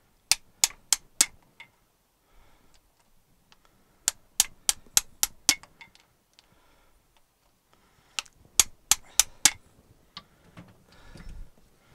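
Small hammer tapping a steel punch against a tractor differential case, metal on metal: three quick runs of about four, six and five sharp strikes, roughly three a second, with pauses between.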